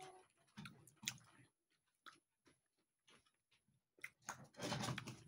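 Quiet chewing of soft sugar-apple (atis) flesh, with scattered small mouth clicks. A louder stretch of sound comes about four to five seconds in.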